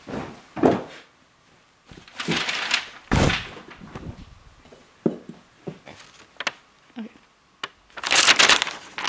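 Bursts of rustling and crinkling with scattered knocks as sofa cushions and paper tape are handled and pulled about while someone rummages through the sofa; the longest, loudest burst comes near the end.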